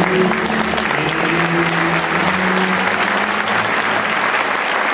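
Audience applauding, with the last sustained notes of music dying away over the first three seconds.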